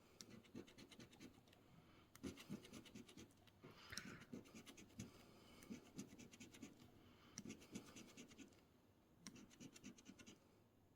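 A coin scratching the coating off an instant scratch-off lottery ticket, in short bursts of rapid back-and-forth strokes with brief pauses between them.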